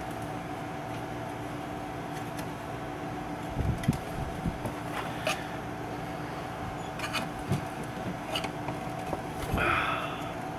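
Scattered small clicks and knocks of a screwdriver prying and working at an old part under a tube radio's tuning capacitor, metal against the chassis, over a steady hum.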